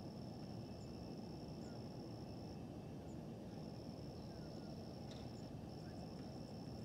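Dawn countryside ambience: a high, thin, steady trill that breaks off twice, with scattered faint bird chirps over a low, even rumble.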